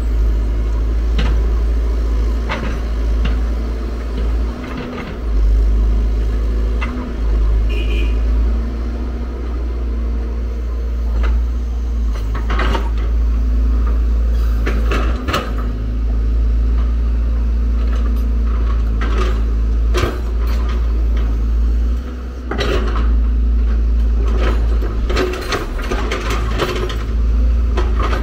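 Diesel engine of a Hyundai R170W wheeled excavator running under load, with repeated metallic clanks and knocks as its bucket scrapes into soil and stones and swings back to dump into the truck.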